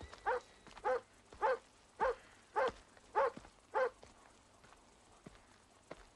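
A dog barking, about seven barks in an even run of nearly two a second, stopping about four seconds in.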